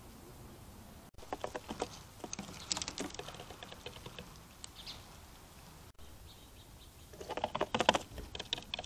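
Quick runs of small clicks and scratchy patter in two spells of a few seconds each, with an abrupt cut between them.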